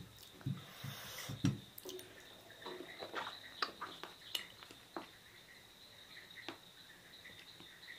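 Wet mouth clicks and smacks of someone chewing juicy sohphie fruit, scattered irregularly and a few soft thumps, over a faint steady high-pitched whine.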